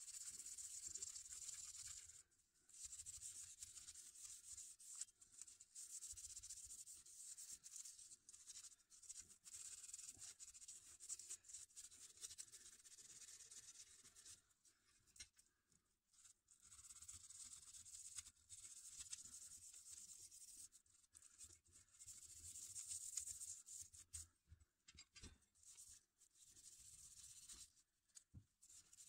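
Faint scratching and rubbing of metal parts being handled and worked by hand on a carpeted bench, in stretches of a few seconds that stop and start.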